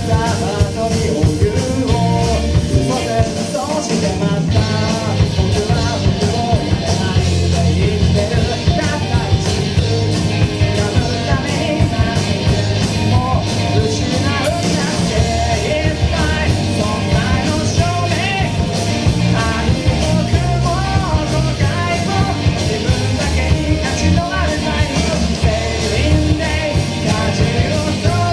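Rock band playing live, drums and bass under a singer's vocals.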